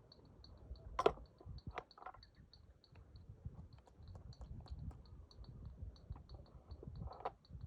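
Cow hoof being trimmed by hand: scraping and rubbing on the hoof with sharp cutting clicks, the loudest about a second in and another near the end. A steady, fast, high ticking, about four a second, runs underneath.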